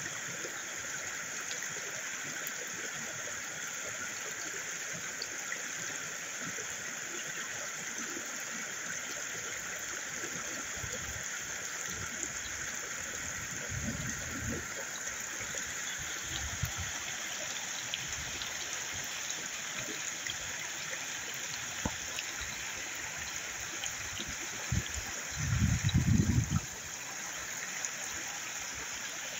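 Creek water flowing steadily, a constant hiss of running water. A few brief low rumbles break in, the loudest near the end.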